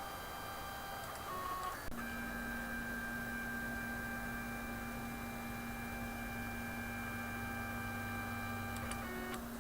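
Stepper motors of a RepRap Prusa 3D printer whining at a steady pitch through one long constant-speed move, with short moves at other pitches about a second and a half in and near the end.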